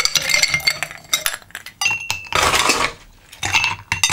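Ice cubes dropped into glassware, clattering and clinking against the glass in three quick rounds, with a metal ice scoop knocking among them.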